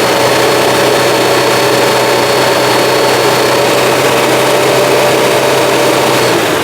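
Citroen GSA's air-cooled flat-four engine idling steadily with the lights on as an electrical load, while its failed alternator is not charging the battery. A thin high whine sits above the engine note for the first half or so, and the engine sound falls away right at the end.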